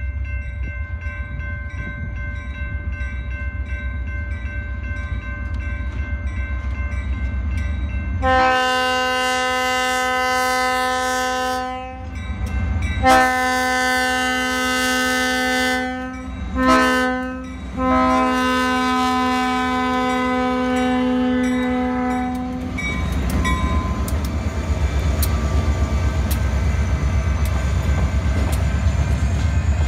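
Diesel freight locomotive's multi-tone air horn sounding the grade-crossing signal: two long blasts, a short one and a final long one. Underneath is the low rumble of the locomotive's engine working at full throttle (notch 8). Near the end, wheels click over the rails as the locomotive passes.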